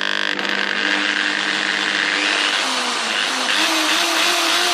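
Electric hammer drill's brushed motor running steadily in reverse, a continuous whine with a new tone coming in a little past halfway. It sounds unwell; the motor has a worn commutator and poor field windings and is giving off a burning smell.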